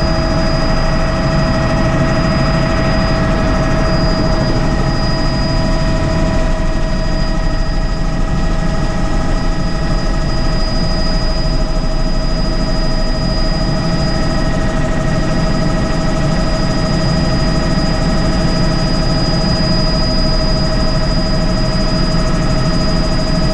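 Helicopter turbine engine and rotor running steadily, heard from inside the cabin: a continuous low rotor rumble under a steady turbine whine.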